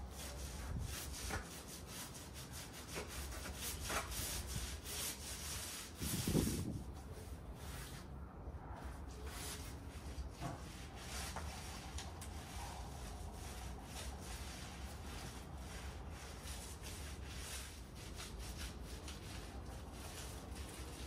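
Paint being applied by hand to rough bark-textured plaster, a run of irregular rubbing strokes. One low thump comes about six seconds in.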